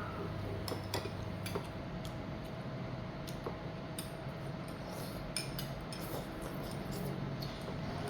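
Scattered light clinks and taps of spoons, chopsticks and bowls at a dinner table, over a steady low hum.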